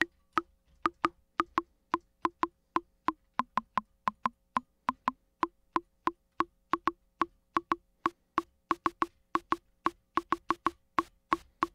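Akai Rhythm Wolf drum machine's analog percussion voice playing a sequenced pattern of short wood-block-like hits, each with a low and a high tone. The low tone dips in pitch for a few hits partway through, and from about eight seconds in a hiss of noise is mixed into each hit. A faint mains hum runs underneath.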